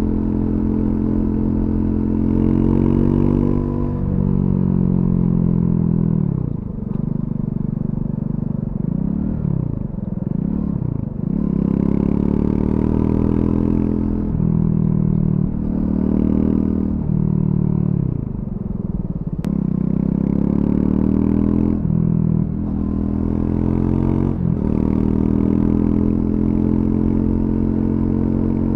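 Triumph Scrambler 400X's single-cylinder engine through its stock exhaust, revs climbing and dropping over and over as the bike accelerates, shifts and rolls off the throttle. About a third of the way in, the revs waver quickly up and down several times.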